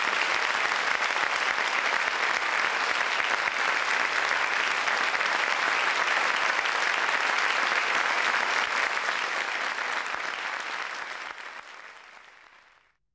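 Audience applauding steadily, then fading out to silence over the last few seconds.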